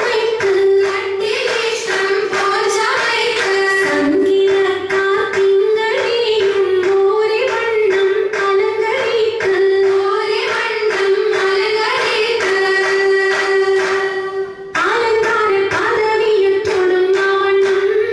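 Group of women singing an Oppana song, a Mappila wedding-dance song, over steady rhythmic handclapping. The song breaks off briefly about fifteen seconds in, then picks up again.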